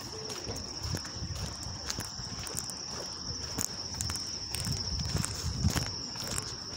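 Steady high-pitched insect trill, with footsteps on stone paving and low thuds of walking and wind on the microphone.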